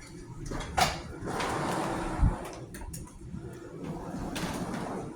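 A sharp click, then rustling and a dull thump, with a few more clicks: a door or fitting being handled.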